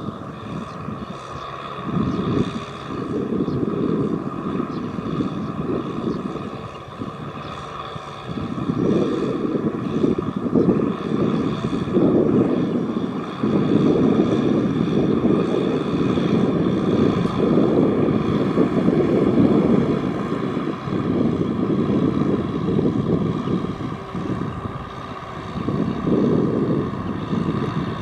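Tractor engine running under load. The sound swells and eases over several seconds at a time, loudest in the middle stretch.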